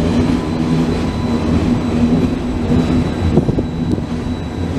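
Flixtrain passenger coaches rolling past, their wheels rumbling on the rails under a steady hum. A few sharp clicks come from the wheels about three seconds in, as the last coach goes by.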